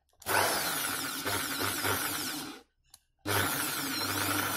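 Corded Foster impact drill run with no load in two bursts. It starts about a quarter second in and spins steadily for over two seconds, stops, then starts again about three seconds in.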